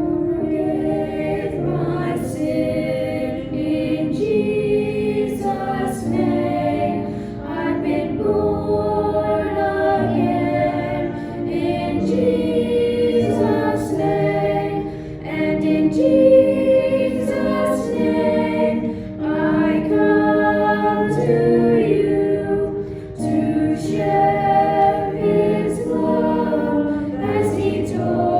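Choir singing a sacred piece, many voices together in sustained sung phrases.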